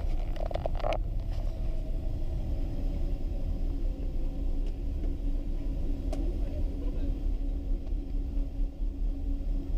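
Steady low rumble of a Boeing 777-200 airliner taxiing, heard inside the passenger cabin, with a steady hum running through it. A brief burst of sound comes just after the start, and a single sharp click about six seconds in.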